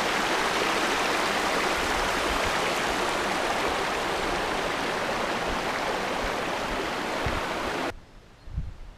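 Stream water rushing steadily over rocks in a shallow rapid, cutting off suddenly about eight seconds in, after which only faint low thumps remain.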